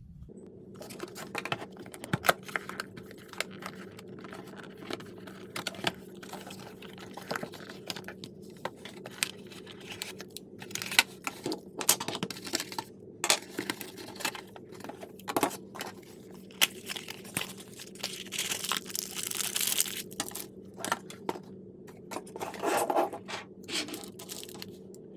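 Unboxing handling noise: a video doorbell's cardboard box being opened and its contents taken out, with scattered clicks and knocks and rustling of packaging, including a longer rustle about three quarters of the way through.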